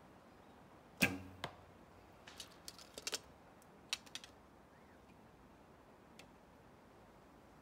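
Shot from a Kaiser traditional bow: the string is released with a sharp twang and a short low ring about a second in, and a second, fainter knock follows half a second later. Then come two short runs of light clicks and rattles as the next arrow is drawn from the leather hip quiver and nocked.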